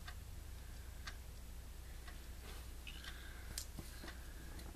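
Faint, scattered ticks and light taps of paper handling: thin cardstock whiskers pivoted and pressed flat onto a paper envelope with the fingertips, over a steady low hum.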